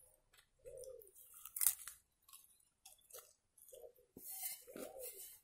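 A person chewing and biting a piece of homemade pan-cooked flatbread, close to the microphone: a string of irregular short chewing sounds, the loudest about one and a half seconds in.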